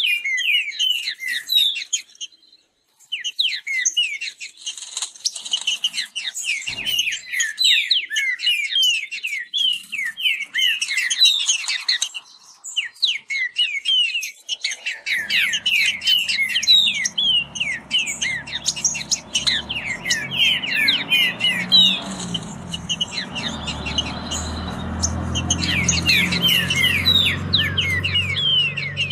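Caged trinca-ferros (green-winged saltators) singing their fast song against each other: a dense stream of quick down-slurred whistled notes, broken by a short pause about two seconds in. From about halfway, a low rumble runs underneath.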